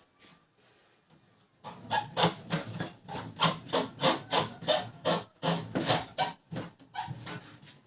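Rapid back-and-forth rubbing strokes, about three a second, as the paper pickup roller of a Canon LBP2900 laser printer is scrubbed clean by hand. They begin about two seconds in and stop near the end.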